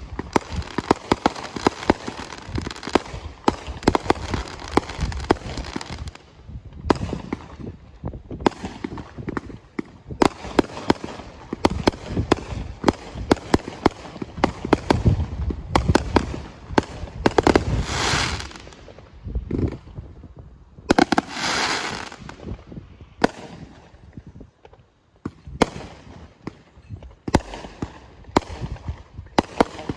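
Firework cakes firing a fast, continuous volley of aerial shots, a string of sharp bangs as shells launch and burst overhead. Twice around the middle, loud crackling hiss rises over the bangs. There is a short lull a few seconds before the end, then the shots resume.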